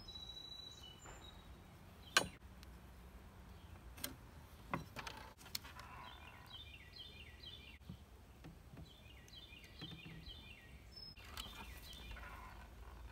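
Quiet outdoor ambience with a few sharp knocks and clicks as wood pieces are set on the miter saw table; the loudest comes about two seconds in. A bird chirps in two runs of short repeated notes in the background.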